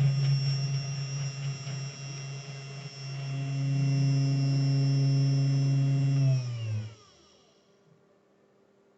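Sainsmart Genmitsu desktop CNC router's spindle motor running with a steady hum and a high whine. About six and a half seconds in, it is switched off and winds down, its pitch falling as it fades to near silence.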